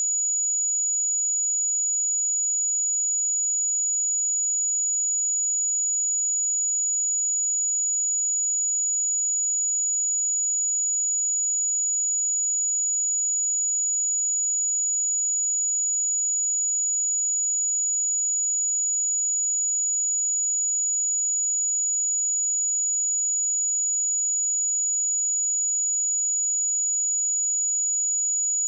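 A pure 6872 Hz sine-wave test tone, held steady at one pitch and level: a thin, high-pitched whistle.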